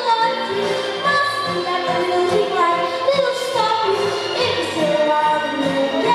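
A singer performing a song over instrumental backing with a steady beat.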